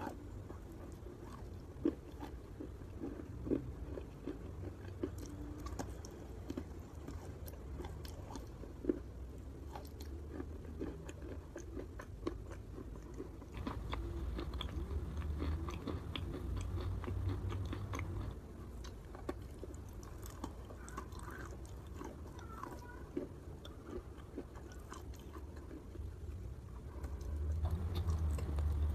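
Close-up biting and chewing of wet chalk paste: soft crunches and moist mouth clicks and smacks, repeated throughout, louder for a few seconds about halfway through and again near the end.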